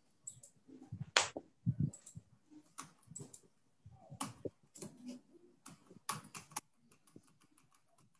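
Computer keyboard keys tapped in an irregular run of faint clicks as numbers are keyed into spreadsheet cells one after another.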